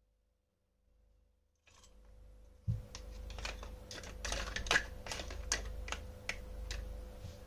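Toy kitchen pieces being handled: irregular sharp clicks and taps, a few a second, starting about two and a half seconds in, over a low steady hum.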